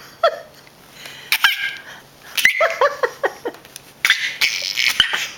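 A baby laughing in several bursts of high-pitched giggles and squeals, the middle burst a run of quick falling "ha-ha" notes.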